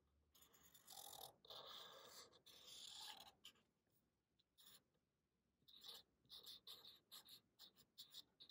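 Faint felt-tip permanent marker drawing on paper: a few longer strokes in the first few seconds, then a run of short, quick strokes near the end.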